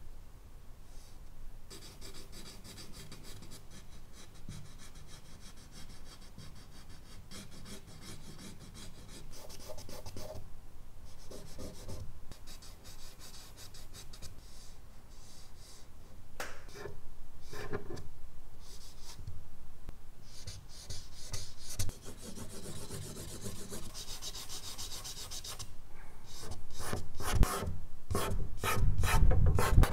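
A charcoal stick scraping and rubbing across medium-surface drawing paper, along with fingers smudging the charcoal. The strokes come quicker and louder near the end.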